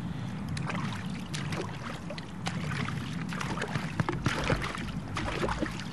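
Children splashing water: irregular splashes and drips over a steady low hum.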